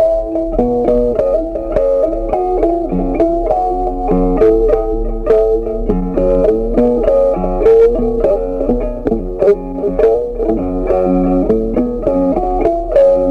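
Background music: a plucked-string melody of short notes over a bass line.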